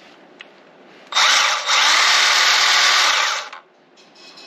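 Milwaukee M12 Fuel Hatchet 6-inch cordless pruning saw running unloaded, its chain spinning free on a dry bar without cutting. About a second in it winds up, dips for a moment, runs for about two seconds, then winds down.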